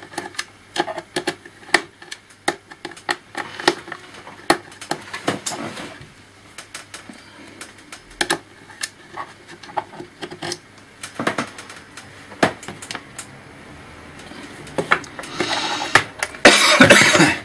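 Irregular small clicks and taps of tiny screws and a screwdriver against a laptop's plastic and metal parts during disassembly. A louder scraping rustle comes in about fifteen seconds in and lasts a couple of seconds.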